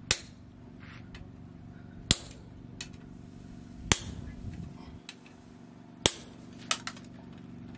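Hammer striking a red-hot steel knife tang on a metal block: sharp metallic blows about every two seconds, then two quick ones near the end, over a steady low hum.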